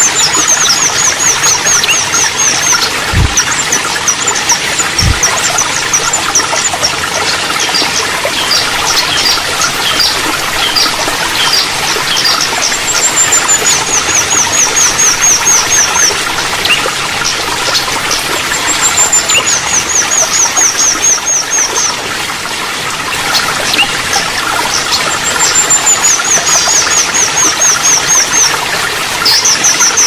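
Water trickling steadily under a sunbird's song, which comes several times: each phrase is a high falling note followed by a fast run of a dozen or so short chirps, with scattered single chirps between phrases. Two short low thumps come about three and five seconds in.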